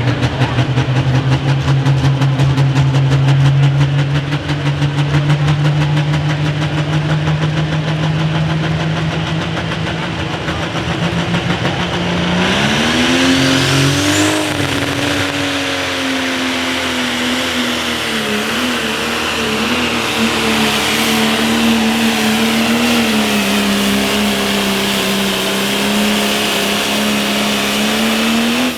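Turbocharged diesel engine of a John Deere Pro Stock pulling tractor running hard under load. About twelve seconds in, the engine pitch climbs and a high turbo whine comes in, then it holds steady with slight wavering until it cuts off suddenly.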